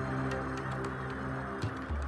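Background music with sustained low notes and light, scattered ticks.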